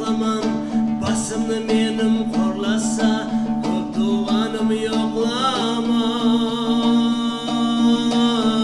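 Male folk singer with an ensemble of strummed two-stringed dombras: a steady low drone under quick strumming, and from about five seconds in the voice holds long, wavering notes.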